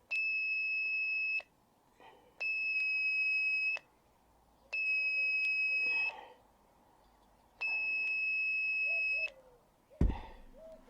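Electronic beep tone sounding four long, steady, high-pitched beeps, each about a second and a half, with short gaps between them. A loud thump follows near the end.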